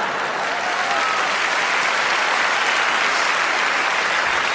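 Live theatre audience applauding steadily, a dense even clatter of clapping.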